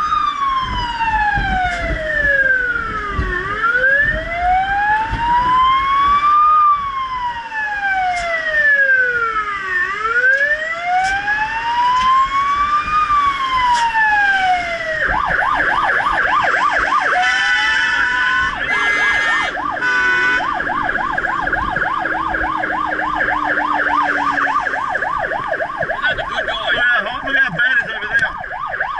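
Rural Fire Service fire truck's siren, heard from inside the cab over engine and road noise. It runs a slow wail, rising and falling about every six and a half seconds, then about halfway through switches to a fast yelp of about four warbles a second, with a brief change of pattern just after the switch.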